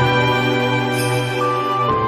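Soft background music with held chords, and a brief bright shimmer about a second in.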